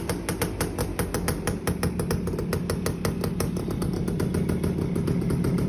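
Suzuki AX100's two-stroke single-cylinder engine running steadily through a small aftermarket exhaust, a quick, even train of exhaust pops, getting a little louder near the end.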